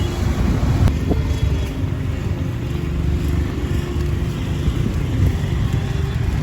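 Steady low rumble of wind buffeting the microphone, with no clear single source standing out.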